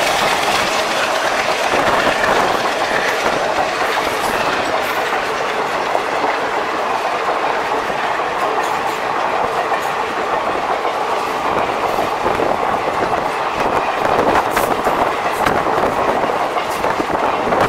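Passenger-train coaches rushing past at speed: a loud, steady rush of wheel and air noise, with the clickety-clack of wheels over rail joints growing more distinct in the later seconds.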